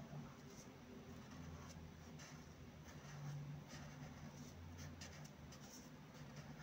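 Chisel-tip calligraphy marker drawing broad strokes across paper: faint, soft scratching that comes and goes with each letter stroke, over a low steady hum.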